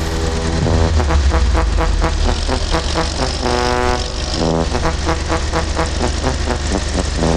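Electronic dance music with a heavy bass line and a steady, driving beat.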